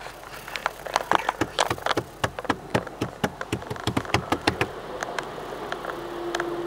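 Automatic car wash water spray and washing equipment pattering and knocking irregularly on the car's body and windshield, heard from inside the car. The knocks come several a second, then thin out about five seconds in.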